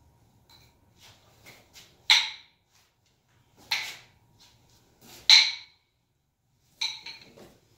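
Nunchaku being swung and caught: three sharp clacks about a second and a half apart, then a quick run of smaller knocks near the end.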